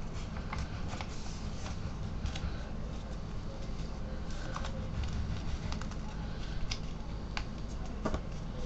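A sheet of paper being folded and creased by hand into a paper airplane: scattered short rustles and crisp clicks, over a steady low hum.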